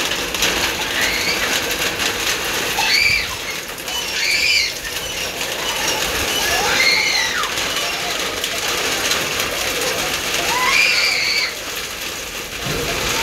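Heavy rain pouring down steadily, with about five short high calls rising and falling over it.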